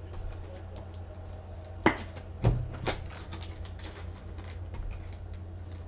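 Typing on a computer keyboard: a patter of small key clicks with a few louder knocks about two seconds in and again half a second later, over a steady low hum.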